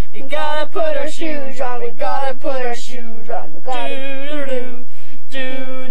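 A girl singing a made-up tune unaccompanied, loud and close to the microphone, in held notes with short breaks between phrases.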